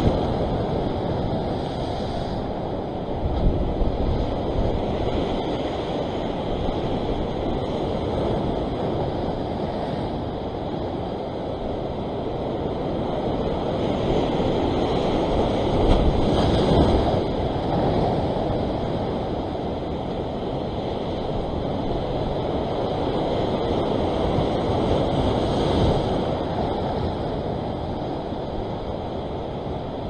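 Ocean surf washing over a rock ledge: a steady rush of breaking water that swells louder each time a wave surges across the rocks, most strongly about halfway through.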